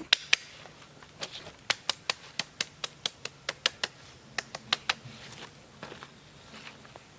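A rapid series of sharp clicks or knocks, about five a second in short runs with brief pauses, the two loudest just after the start.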